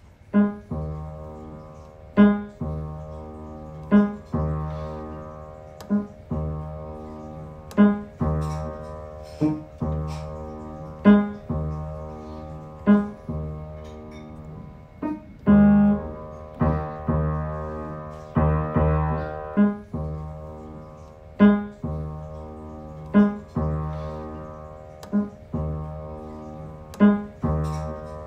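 Background piano music: slow chords struck roughly every two seconds, each ringing out and fading before the next.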